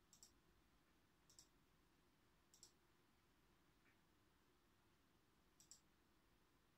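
Four faint computer-mouse button clicks, each a quick double tick of press and release. Three come about a second apart and the last after a longer pause.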